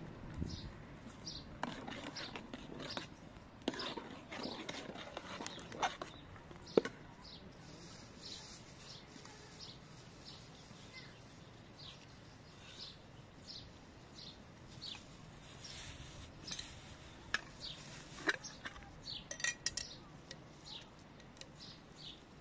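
Sparse clinks and knocks of utensils on a metal cooking pot, the sharpest about seven seconds in, with birds chirping throughout.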